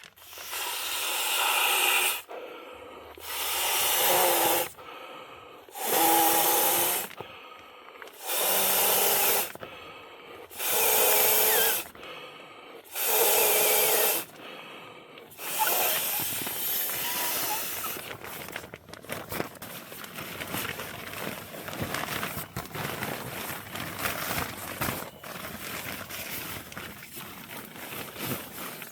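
A person inflating an inflatable sleeping pad by mouth: seven long, hissing exhales into the valve, about one every two seconds, with quick breaths in between. After that, quieter rustling and small clicks as the pad is handled.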